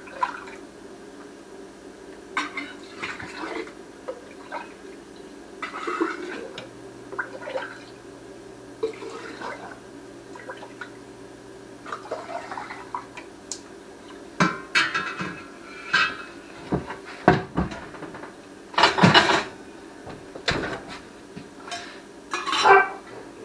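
Kitchen utensils, a metal funnel and glass jars clinking and clattering at a sink, with short bursts of splashing liquid, the loudest about two-thirds of the way through. A steady low hum runs underneath.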